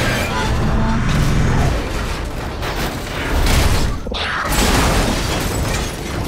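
Action-film sound-effects mix of a futuristic hover-car chase: vehicles rushing past with mechanical whirring and heavy booms of impacts. The sound drops out suddenly for a moment just after four seconds, then comes back in.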